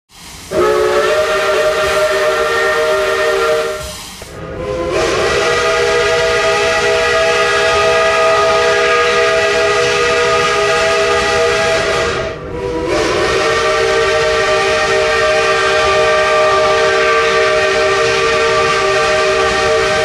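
Lunkenheimer three-chime steam whistle on Cass No. 4, a Shay geared steam locomotive, blown three times: a short blast of about four seconds, then two long blasts of seven to eight seconds. Each blast is a steady chord of several tones over a steam hiss.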